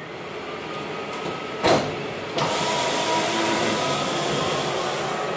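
Walk-behind floor scrubber-dryer starting up: a low machine noise builds, there is a knock about a second and a half in, and then its suction motor comes on, a steady rushing noise like a vacuum cleaner that carries on.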